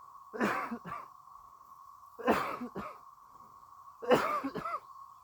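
A strange hoarse call from an animal in the woods, repeated three times about two seconds apart. Each call is a longer rasping note followed at once by a short one, heard over a steady high-pitched hum.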